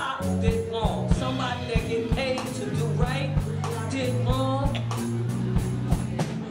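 A live band playing with drum kit, bass and keyboard. The drums and cymbals hit several times a second over long held bass notes.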